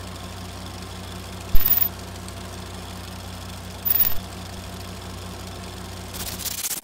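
Old film projector sound effect: a steady low motor hum with a fast regular flutter, broken twice by short loud bursts of noise, about one and a half and four seconds in. It cuts off near the end.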